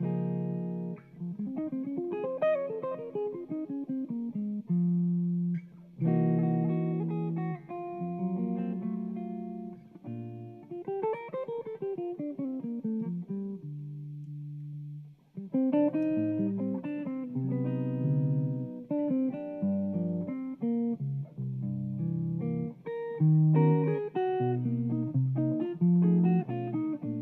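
Solo hollow-body electric archtop guitar playing a slow jazz ballad in chord-melody style: ringing chords with two quick runs that sweep up and back down, a short lull on a low held note about halfway through, then fuller chords.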